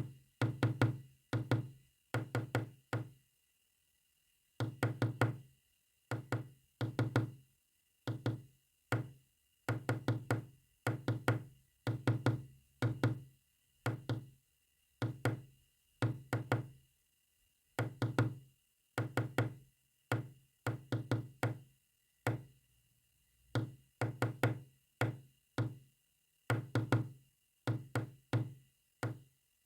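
Resonant, low-pitched knocks repeated in quick clusters of about two to five strokes, with short pauses between the clusters, tapping out a message in code.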